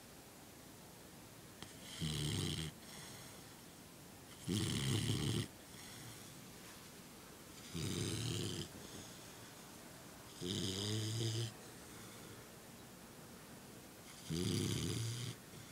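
A sleeping puppy, almost three months old, snoring: five snores, each under a second long, coming about every three seconds.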